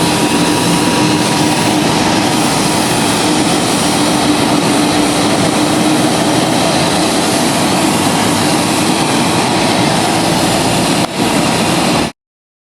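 Steady jet airliner engine and air noise heard inside the cabin, with a low steady hum. It cuts off abruptly near the end.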